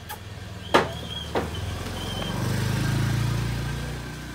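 A motorbike passing, its low engine sound swelling to a peak about three seconds in and then fading. Two sharp clicks come just before it, under a second and about a second and a half in.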